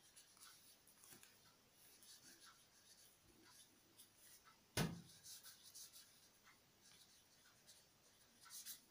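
Faint scratching of a ballpoint pen on paper as a word is handwritten, in short strokes. A single sharp knock about five seconds in is the loudest sound.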